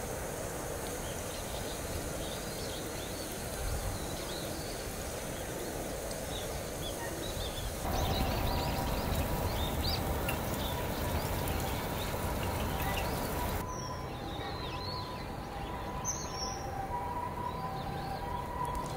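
Outdoor ambience: a steady background hiss with small birds chirping on and off. The background changes abruptly twice, and two faint steady tones sound through the last few seconds.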